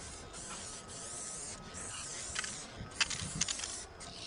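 Aerosol spray paint can hissing: two long sprays with a short break between them, then several quick short bursts about three seconds in.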